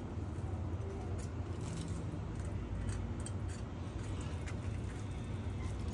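Faint soft clicks and wet squelches of cooked chicken meat being pulled off the bone by hand against a cleaver blade, over a steady low background rumble.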